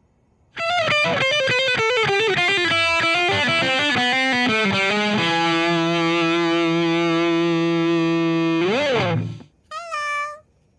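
Music: a distorted electric guitar plays a fast run of notes stepping downward, then holds a chord for about three seconds. It ends with a quick pitch bend and one short final note.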